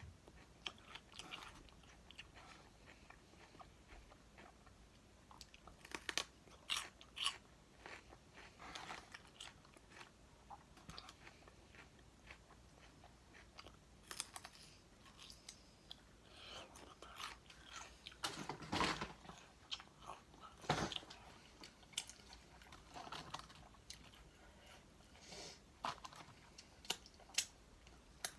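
A person biting and chewing crispy fried chicken wings close to the microphone: irregular crisp crunches between quieter chewing, with a few louder crunches now and then.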